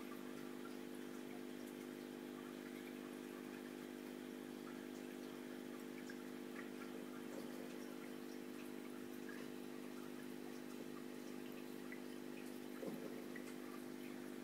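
Aquarium equipment running, a faint steady hum with a light trickle of water and scattered tiny ticks. One soft tap comes near the end.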